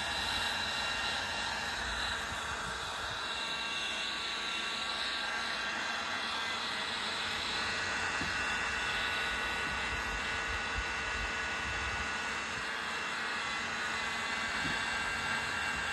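Milwaukee M18BHG cordless heat gun running steadily, held on heat-shrink tubing: an even blower rush with faint constant whine tones.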